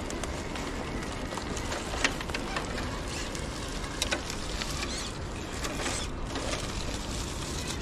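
Electric RC rock crawler truck climbing over boulders: its motor and gears whir steadily while the tyres scrape and grip on the stone. A few sharp knocks stand out, about two seconds in and again near the four-second mark.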